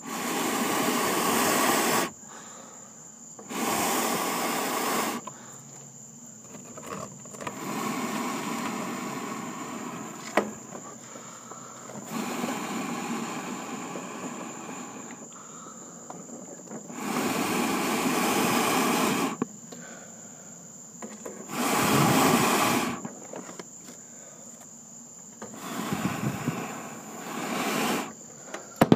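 A person blowing hard on glowing charcoal embers to fan them into flame: about seven long, rushing breaths a few seconds apart. Crickets chirp steadily behind.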